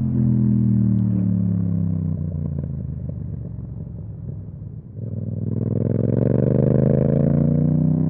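Yamaha MT-07 parallel-twin engine through an Akrapovic exhaust, revs falling off throttle for about four seconds, then opened up again about five seconds in, revs climbing sharply before settling into a steady pull.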